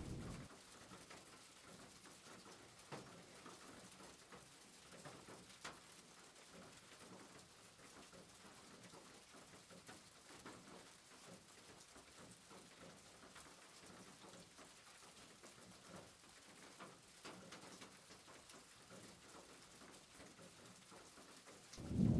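Faint sizzling of diced chicken frying in oil in a pan as the liquid cooks off, with a few scattered light clicks of a wooden spoon stirring against the pan.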